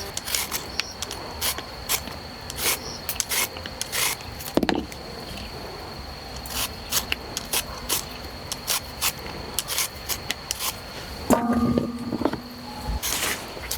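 Irregular short scraping and rubbing strokes, like something being rubbed or rasped against wood, over a steady high, thin insect drone; a short pitched sound comes in a little after eleven seconds.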